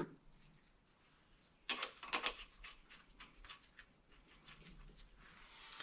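Faint handling of ring gear bolts on a differential carrier: two sharp clicks about two seconds in, followed by a run of light ticks and taps as the bolts are worked in by hand.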